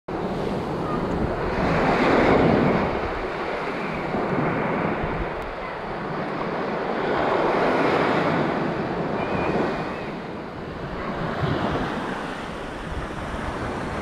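Sea surf washing up a sandy beach, swelling loudest about two seconds in and again around eight seconds as waves break and run up the sand, with wind rumbling on the microphone.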